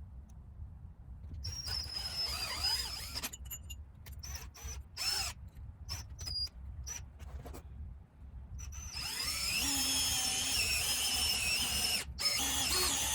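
Power drill boring lag-screw holes into a pressure-treated wooden timber: a short run about a second and a half in, a series of brief trigger pulses, then a long steady run from about nine seconds with a high whine that climbs as the motor speeds up.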